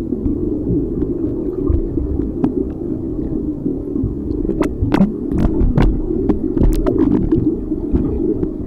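Muffled underwater rumble of water moving against a camera in its waterproof housing, steady and low, with scattered sharp clicks that come more often in the second half.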